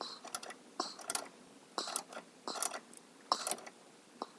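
Ratchet wrench clicking in short, even strokes, a little cluster of clicks about every three-quarters of a second.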